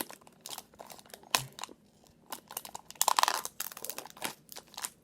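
Crinkling and handling of packaging, with scattered light clicks and taps. The loudest crinkle comes about three seconds in.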